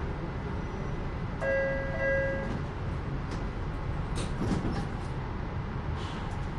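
Los Angeles Metro Rail train with a steady low rumble. About a second and a half in, a door-closing chime sounds for about a second, and a few light clicks and knocks follow later.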